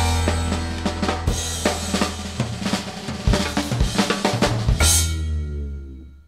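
Background music led by a drum kit, with kick, snare and cymbal hits over a held low bass note. It starts abruptly and fades out near the end.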